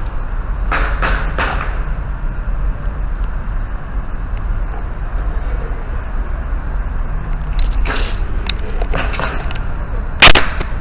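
Airsoft guns firing: three quick snapping shots about a second in, more scattered shots later, and one much louder sharp hit near the end, over a steady low rumble.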